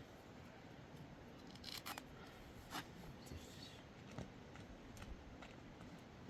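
Quiet background with a few faint, scattered clicks and scrapes of small objects being handled, the clearest a couple of seconds in and again about four seconds in.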